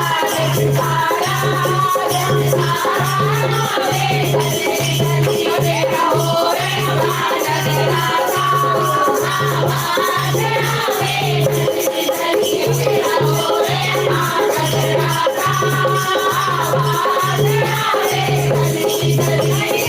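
Devotional kirtan music: a sung bhajan melody over a steady low drum beat, about one and a half beats a second, with rattling, shaker-like percussion throughout.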